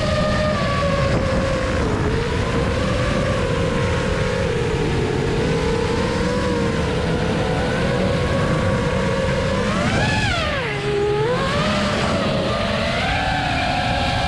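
FPV quadcopter's brushless motors and propellers whining as heard from the onboard camera, the pitch following the throttle; about ten seconds in the pitch drops sharply and climbs back as the throttle is cut and punched again. A rough low rumble of wind and dirt bike engines runs underneath.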